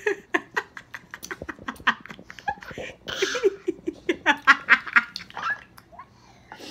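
A woman laughing in short, rapidly repeated bursts, with a toddler's fussing whimper mixed in as he reacts to a sour candy.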